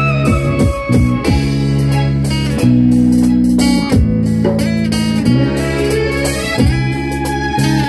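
Instrumental music: a Yamaha cutaway acoustic-electric guitar picked over long held keyboard chords, without vocals.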